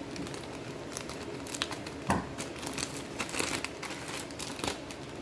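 Packaging crinkling and rustling as it is handled and opened, in irregular crackles, with a single louder knock about two seconds in.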